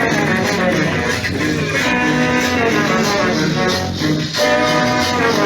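Loud tropical dance music played over a sonidero sound system: a cumbia with guitar, shaker and a steady beat.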